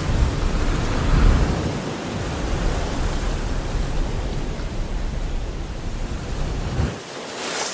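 Steady rushing noise with a deep rumble beneath it. The rumble drops away about seven seconds in, and a brighter hiss comes up near the end.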